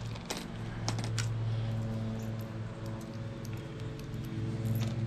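Small steel bolts, nuts and washers clinking and clicking together as they are handled, with a few sharp clicks in the first second or so and fainter ones after. A steady low hum runs underneath.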